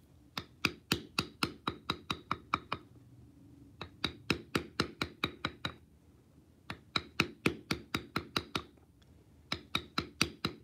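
Mallet striking a metal leather-tooling stamp into leather, tapping about four or five times a second in four runs with short pauses between them, each tap with a brief metallic ring.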